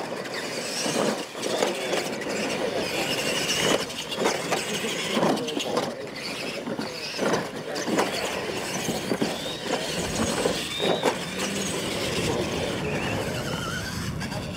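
Radio-controlled monster trucks racing over a dirt track with ramps: electric motors whining as they speed up and slow down, tyres churning the dirt, and irregular thumps as the trucks hit and land off the jumps.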